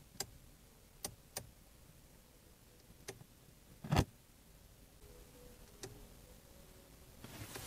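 Quiet background broken by about six short, sharp clicks, the loudest about four seconds in.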